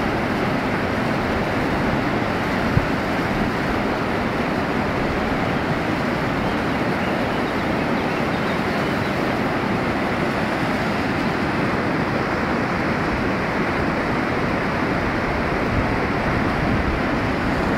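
River in flood rushing past: a steady noise of fast, high, muddy water.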